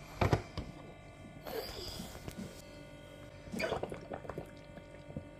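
Hard plastic toy parts handled and fitted together: a sharp plastic knock about a quarter second in, then two short spells of plastic clicking and scraping, near the middle and a little later.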